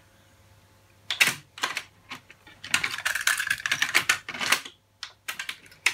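A quick run of sharp clicks and clatter, like buttons or keys being pressed, thickest for about two seconds in the middle, with a few more clicks near the end.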